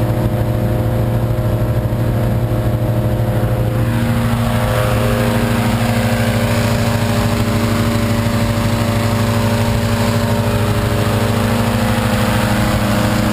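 Petrol-engine inflator fan running steadily. From about four seconds in, a hot-air balloon's propane burner fires into the envelope with a steady rushing noise over the engine, heating the air during hot inflation.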